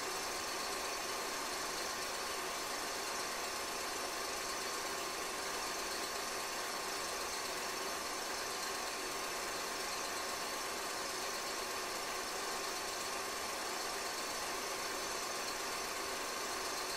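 Steady mechanical whirr with hiss and hum that does not change while the steam train passes: the running noise of a projector during a silent-film transfer, not sound from the locomotive.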